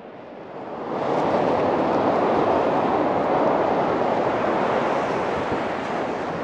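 Ocean surf breaking and washing up a sandy beach, a steady rush that swells about a second in and slowly eases near the end.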